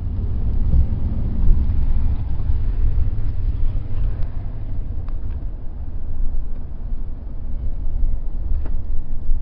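Steady low rumble of a car driving along a city street, road and wind noise heard from inside the cabin.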